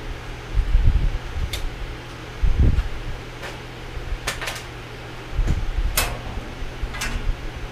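Steady hum of a workshop fan, with a few short sharp metallic clicks and several low thuds of metal and tools being handled.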